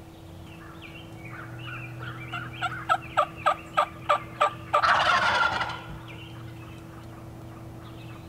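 Eastern wild turkey gobbler gobbling once, a loud rattling gobble about a second long. It comes right after a run of seven sharp yelping notes at about three a second.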